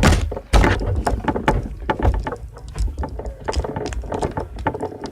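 Close handling noise from a toy squishy being handled by hand: irregular rustling, crinkling and small knocks right at the microphone.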